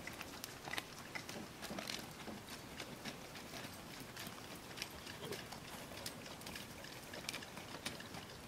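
Faint hoofbeats of a ridden horse on soft sand, an uneven string of light thuds and clicks.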